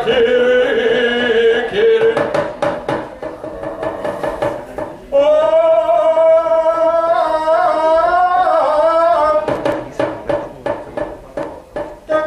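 Singing in long held, wavering notes, in two phrases, with runs of sharp rapping knocks between them from the puppeteer's wooden knocker (cempala) striking the wayang puppet chest.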